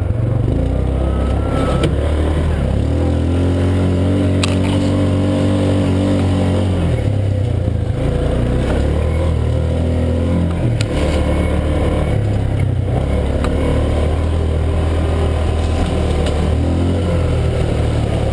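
Yamaha Rhino side-by-side's single-cylinder engine running under load on a rough dirt trail, its pitch rising and falling as the throttle is worked. A few sharp knocks are heard.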